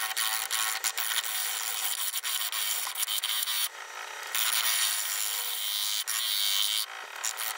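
Bowl gouge cutting into the face of a large spinning Scottish elm blank on a wood lathe: a steady rough scraping hiss from very hard elm. It eases briefly about halfway through and again near the end.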